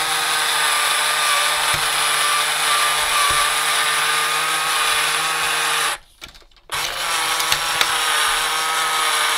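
Small battery-powered electric motor drive of a 1971 Nintendo Ultra Scope toy periscope running with a steady whine as it pushes the periscope up. It cuts out for under a second about six seconds in, then starts again.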